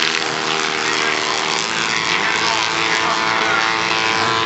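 Crosscar racing engines running on a dirt circuit, revving and rising in pitch as the cars accelerate, with crowd voices mixed in.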